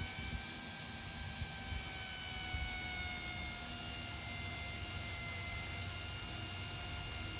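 Electric drill running steadily while boring a hole with a small bit, its motor giving a steady whine that sags slightly in pitch and recovers.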